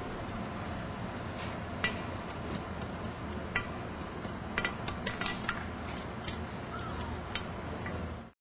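Light metallic clinks and ticks of blacksmithing tools and a small bar, a few ringing briefly, over a steady low hum. The sound cuts off suddenly near the end.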